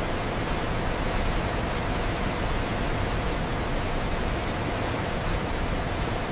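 Steady, even rushing noise of factory machinery on a salt processing line, with no distinct rhythm, tone or knocks.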